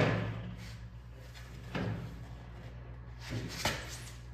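Bent aluminum sheet panel knocking and clunking against the aluminum frame as it is pushed into place for a test fit. A sharp knock comes at the start, then softer clunks about two seconds in and again near the end.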